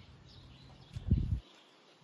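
Faint birds chirping in the background, and about a second in a brief low thump with a rumble lasting about half a second.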